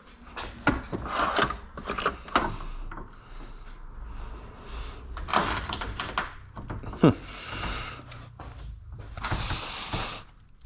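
Clicks, knocks and short scrapes of hands and tools working on plastic and metal car cooling-system parts, a radiator and fan shroud, with two short falling scrapes about halfway through.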